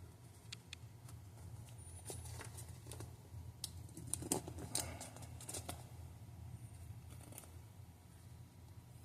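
Small scattered clicks and taps of tweezers and tiny metal parts being handled on a wristwatch during re-assembly, with a few quick clicks together about four to five seconds in, over a steady low hum.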